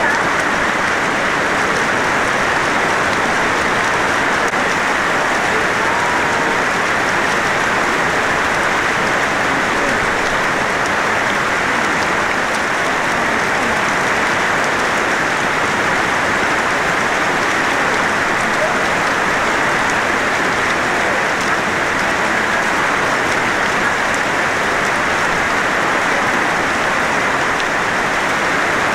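Steady rushing of water, an even hiss that never breaks.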